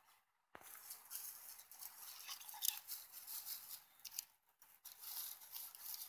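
Small wood-shaving tinder fire crackling and hissing as the flame takes hold. It begins sharply about half a second in and goes on as a dense, faint crackle.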